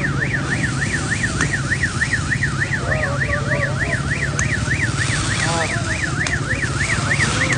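Electronic siren warbling fast and steadily, about four rises and falls a second.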